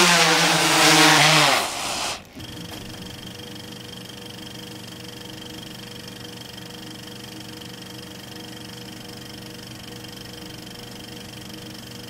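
Freefly Alta 8 octocopter's propellers whining loudly as it flies close. The sound cuts off sharply about two seconds in, and a quieter, very steady mechanical whir with a few fixed tones carries on.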